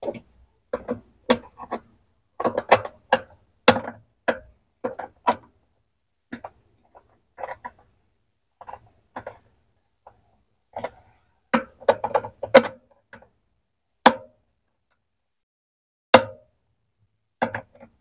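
Steel L-shaped hex key clicking and clinking against the bolt and metal parts at the base of a top-load washer's agitator as it is turned and refitted stroke by stroke to tighten the agitator onto its shaft. The clicks come in irregular clusters, several a second at times, with short pauses between.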